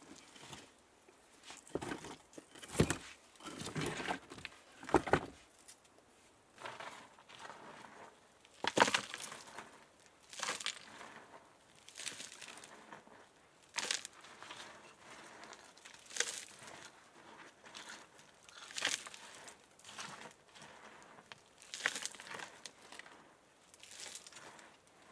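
Stones and dirt being handled. A few heavier knocks of rock on rock come in the first five seconds, then lighter scraping and brushing of dirt and gravel by hand, in irregular strokes every second or two.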